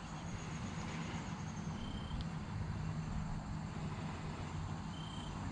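Outdoor ambience: a steady low hum under an even hiss, with two short high chirps about three seconds apart.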